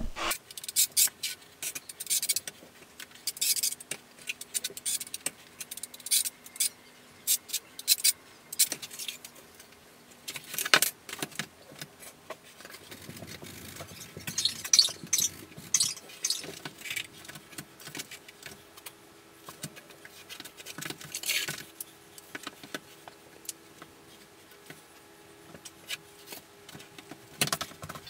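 Trowel scraping polymer-modified thinset across the back of a marble tile, a run of short, irregular scrapes and metallic clicks.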